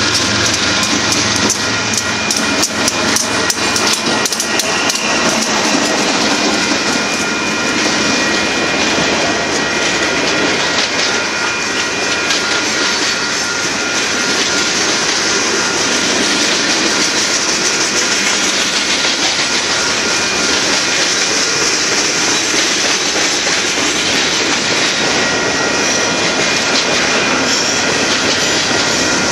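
Union Pacific freight train rolling past at close range: the last locomotives pass, then a string of tank cars and covered hoppers. Steel wheels clack over rail joints, most densely in the first several seconds, over a continuous rolling rumble.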